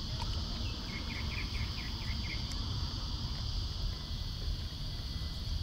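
Steady, high-pitched drone of insects calling outdoors, over a low rumble. About a second in comes a quick run of short chirps.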